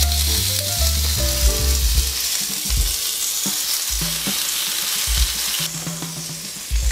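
Sizzling of an olive-oil-brushed sandwich on the hot plates of an electric contact grill as the lid is closed over it, quieter for the last second. Background music with a bass line plays underneath.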